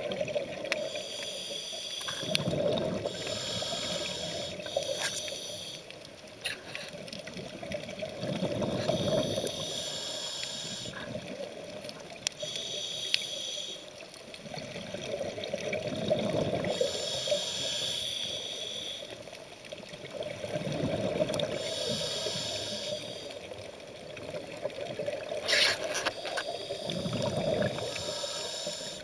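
A scuba diver breathing through a regulator underwater, about one breath every six seconds. Each breath is a regulator hiss on the inhale and a bubbling rumble of exhaled air, with a couple of faint clicks in between.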